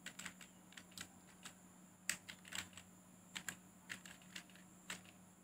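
Computer keyboard being typed on: a quick, irregular run of quiet key clicks as a short phrase is typed, stopping shortly before the end.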